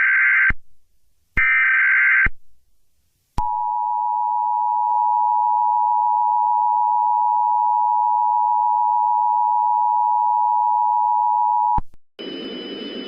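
Emergency Alert System alert tones. Near the start come two buzzy digital bursts of the SAME header data, each about a second long. About three and a half seconds in, the steady two-tone EAS attention signal (853 and 960 Hz) begins, holds for about eight seconds and cuts off abruptly near the end.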